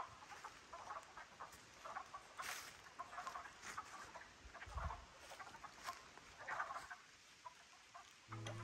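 Faint, irregular clucking calls and scuffling from unseen animals, which the hiker guesses may be wild turkeys fighting. Guitar music comes in right at the end.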